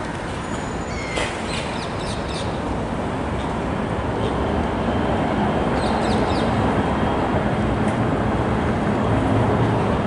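Steady city traffic rumble that grows louder about halfway through, with short gull calls, a cluster about a second in and a few more around six seconds in.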